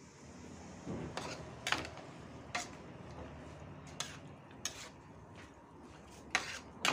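Metal spatula clinking and scraping against an aluminium wok as vegetables are stirred, a series of sharp clinks at irregular intervals.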